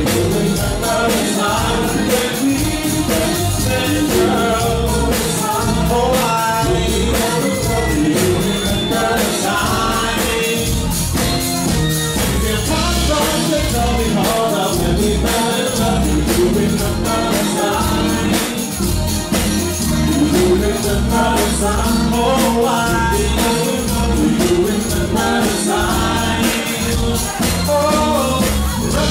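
Live band playing a freestyle dance song, loud and steady: male and female lead vocals over drum kit, bass guitar and keyboard.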